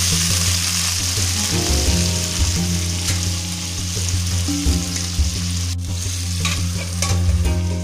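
Sizzling in a wok of hot water and tempering oil as uncooked rice-flour fingers go in. The sizzle is strongest at the start and eases, with a brief break about six seconds in and a few clicks after it. Background music plays underneath.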